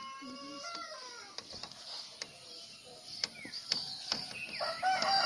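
Village birdsong with chirping and scattered sharp ticks, then a rooster crowing loudly from near the end, a long held call.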